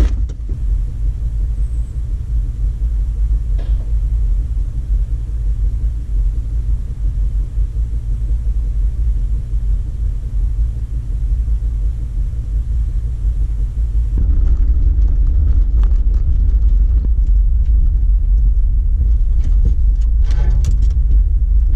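Jeep Wrangler's engine idling steadily while parked. About 14 seconds in it changes to the louder, busier sound of the Jeep driving along a rough trail.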